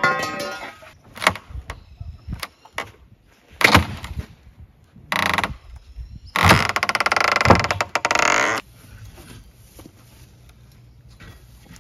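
Old wooden pen boards being pried and pulled apart with a long metal bar: several sharp knocks and cracks, then a long, loud creaking rasp of wood and nails giving way from about six and a half to eight and a half seconds in.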